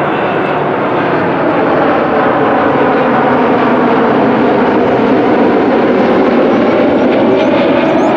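Airplane passing close by near the runway, its engines giving a loud, steady noise throughout.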